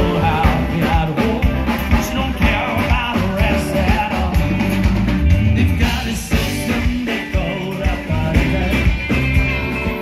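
Live band playing rock music through PA speakers: drum kit, electric and acoustic guitars, and a voice singing.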